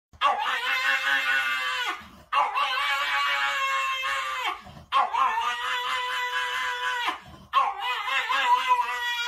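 A pug howling: four long, drawn-out howls of about two seconds each, with brief breaks between them.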